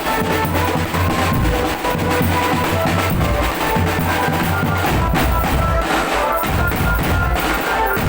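Marching drum band playing: bass drums and snare drums beat a dense, steady rhythm, with held melody notes sounding over the drumming.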